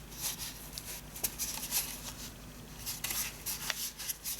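Cardstock being folded and handled on a desk: irregular papery rustles and light taps as the scored card is bent back along its score line.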